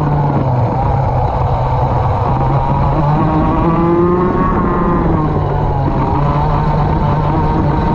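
Racing go-kart engine running hard, its pitch dropping and rising again several times as it slows for corners and accelerates out of them.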